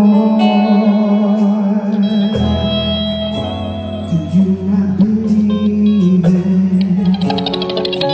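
Live gospel band music: sustained chords over a light, regular beat, with a bass line coming in a couple of seconds in.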